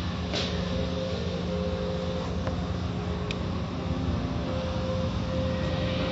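Automatic tunnel car wash heard from inside the car: a steady rumble and hum of the wash machinery, with water spraying and cloth wash strips swishing over the windshield. A few brief ticks stand out over the noise.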